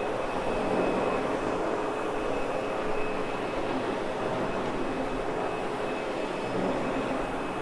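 Sebo X8 upright vacuum cleaner running steadily over a wool rug, picking up loose fibres and dog hair, with a constant motor hum and a thin steady whine.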